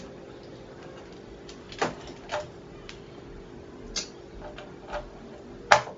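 Scattered small clicks and knocks as a PCIe riser's data cable and plug are handled, with a sharper, louder click near the end as the plug is pushed into the motherboard's PCI slot.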